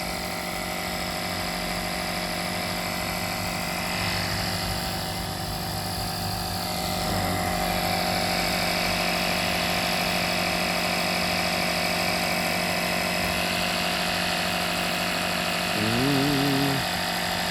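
Portable tire inflator's compressor running steadily while pumping up a tire to a preset pressure, getting a little louder about seven seconds in.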